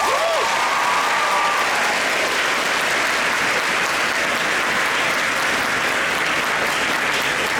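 Audience of students applauding steadily.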